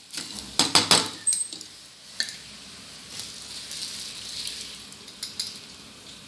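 A spatula scrapes and clatters against a wok of dry-roasted coriander seeds and curry leaves, with several sharp scrapes in the first second. The hot seeds are then tipped out, rattling and sliding with a soft hiss onto a steel plate of dried red chillies.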